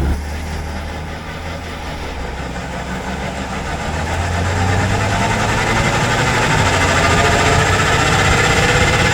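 Jeep Gladiator's Dana M220 rear axle whining over the steady drone of the running drivetrain, the whine growing louder from about four seconds in. This is the rear-end howl later traced to gears set far too tight (about 3 thousandths of backlash) and a failing outer pinion bearing.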